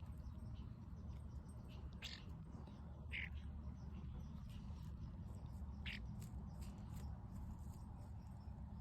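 Faint short bird chirps, three of them about two, three and six seconds in, over a low steady background rumble.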